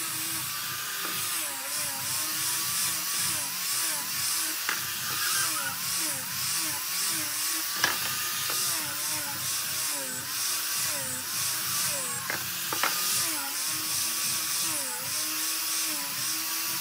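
Small angle grinder fitted with a sanding disc, running and sanding wooden sticks; its motor pitch dips about once a second as the disc is pressed into the wood, over the hiss of the abrasive on wood. A few sharp clicks partway through.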